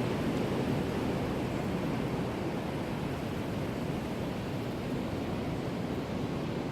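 Wind from a windstorm blowing steadily: an even noise with no pitch, easing off very slightly over the seconds.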